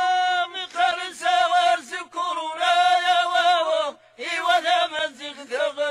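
Male voice chanting a sung Tamazight (Amazigh) poem. It holds long, high notes with a wavering vibrato and breaks them with short ornamented turns. There is a brief breath pause about four seconds in.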